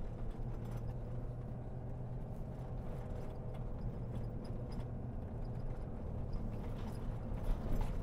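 Steady low engine and tyre rumble inside the cab of a moving Ford pickup, with small irregular knocks and rattles throughout.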